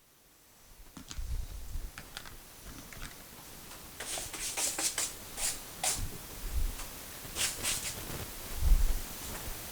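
Scattered rustling and shuffling with a few dull low thumps and light clicks, like someone moving about and handling things in a small room.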